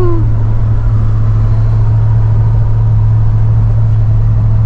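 Steady low drone of road and engine noise inside the cabin of a Nissan Patrol Y62 cruising on a highway.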